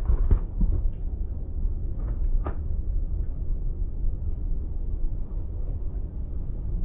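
Automatic car wash equipment rumbling steadily, with a few knocks and clicks, the clearest near the start and about two and a half seconds in.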